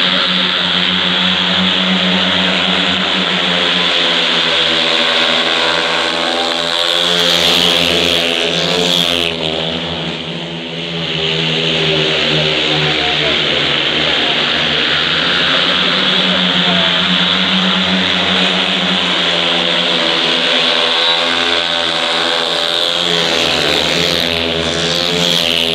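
Pack of speedway bikes, single-cylinder 500 cc methanol-burning engines, racing round the track with the engine note rising and falling through the bends. The pack passes close by about eight seconds in and again near the end, roughly a lap apart.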